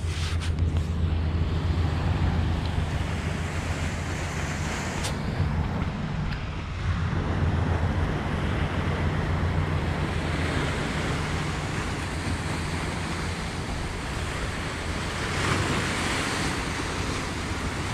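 Wind buffeting the microphone over the wash of small harbour waves breaking on rocks, with a brief swell of surf hiss near the end.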